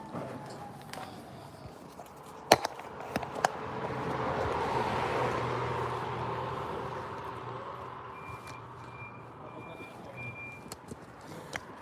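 A vehicle passes, its noise swelling and fading over a few seconds. Before it come a few sharp knocks, the loudest about two and a half seconds in. Near the end there are four short, evenly spaced high beeps.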